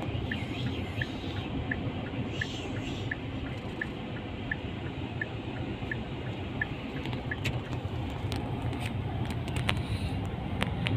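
Steady road and engine noise heard inside the cabin of a car cruising on a motorway. A short high beep repeats about once or twice a second and stops about seven and a half seconds in.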